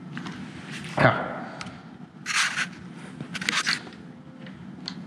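Handling noise at a motorcycle's handlebar clutch lever assembly: a sharp click about a second in, then short scrapes and rustles as the lever, perch and cable are handled, over a steady low hum.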